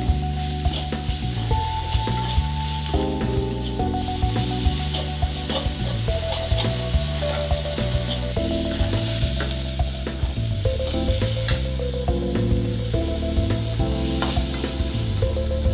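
Onions and ginger-garlic paste with ground pepper sizzling in oil in a metal kadai on a low gas flame, a slotted metal spatula stirring and scraping them against the pan: the masala being fried until the raw smell of the paste goes. Background music with a slow melody plays over it.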